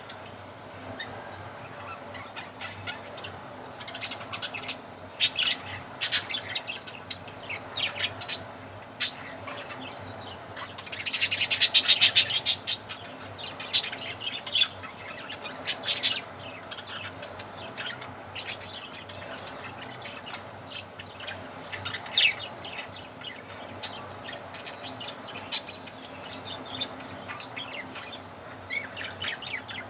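Pet budgerigars chirping and chattering in short scattered calls, with a loud, fast run of chirps about eleven seconds in.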